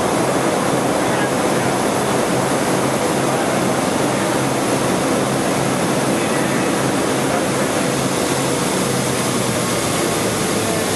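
Steady, loud jet-engine and airflow noise inside a parabolic-flight aircraft's cabin, with a faint low hum, as the plane flies a high-g pullout into a parabola.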